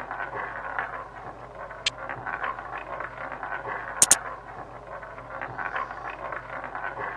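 Steady background hiss broken by a few sharp clicks: a single click about two seconds in and a quick pair about four seconds in, as bets are placed and the spin is started in an online roulette game.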